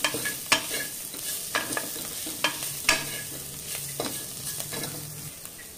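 Wooden spatula scraping and knocking against the inside of an aluminium pressure cooker in irregular strokes, stirring sweet corn, onions and green chillies that sizzle gently in ghee on a low flame.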